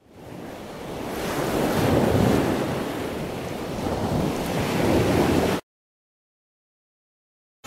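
Choppy sea water rushing and splashing against the side of a boat, with wind buffeting the microphone. It fades in, then cuts off abruptly to dead silence for the last two seconds.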